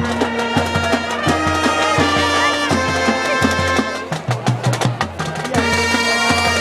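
Marching band playing: brass holding chords over a steady drum beat, easing off briefly about four seconds in before swelling again.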